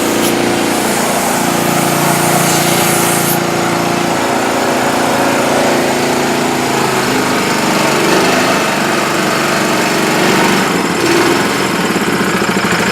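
Honda GX160 single-cylinder four-stroke engine on a gas-powered air compressor, running steadily just after a cold start while it idles to warm up. A high hiss over it cuts off sharply about three seconds in.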